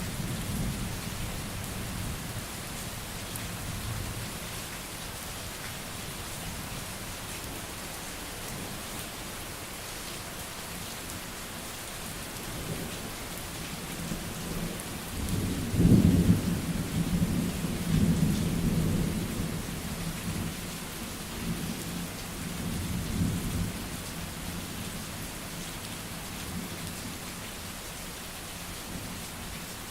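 Steady rain falling with thunder rolling in the background. The loudest thunder clap comes about halfway through and rumbles on for several seconds, with a smaller rumble a few seconds later.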